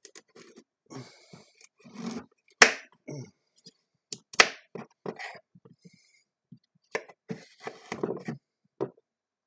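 Kitchen knife splitting a large raw carrot lengthwise: scraping cuts and small knocks on the counter, with two sharp cracks a little under two seconds apart as the blade breaks through.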